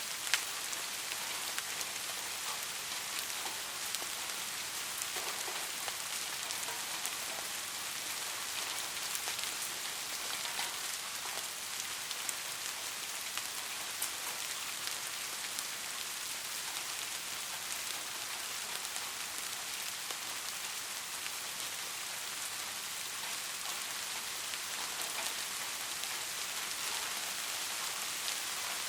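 Steady rain falling on a surface, an even hiss dense with tiny drop taps.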